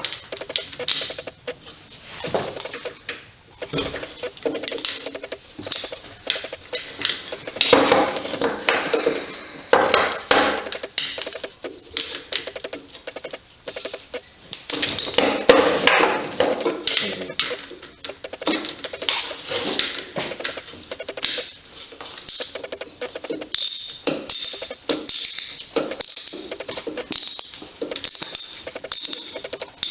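Metal hand tools clicking and clattering, with the rapid irregular clicking of a ratchet wrench being worked. Brief high metallic pings near the end.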